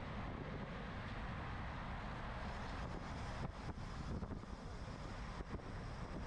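Wind rushing over the microphone of a camera riding along on a racing bicycle at speed, with a few brief knocks and dropouts in the middle.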